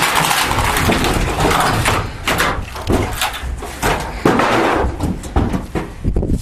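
Irregular knocks and bangs of wooden boards being struck and knocked loose from a building's studs during demolition.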